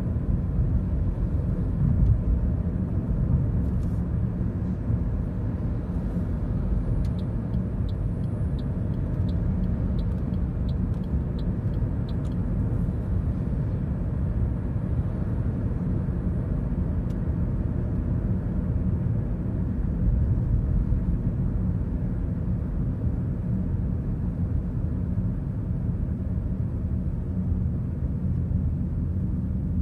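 Steady low road and engine rumble heard from inside a moving car at about 50 km/h. A run of light, evenly spaced ticks, about two a second, sounds for roughly five seconds starting some seven seconds in.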